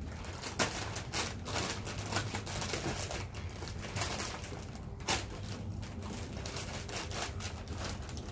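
A Doritos chip bag crinkling and crackling as it is handled and pulled open, a long run of sharp crackles with a few louder snaps.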